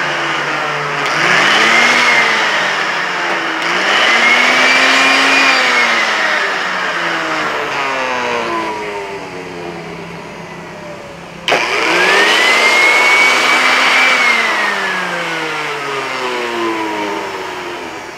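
Electric air blower blowing dust out of a car stereo's CD mechanism, its motor whining up in pitch and winding down again several times as it is switched on and off in short bursts, with a sudden restart about two-thirds of the way through.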